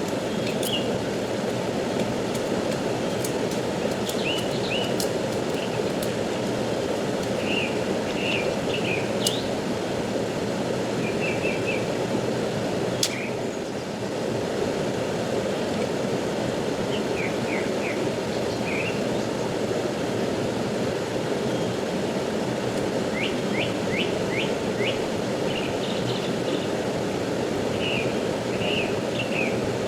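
Steady rush of a fast-flowing river, with small birds chirping over it in short, scattered calls, including a quick run of chirps past the middle. A couple of sharp clicks stand out, at about a third of the way in and again a little later.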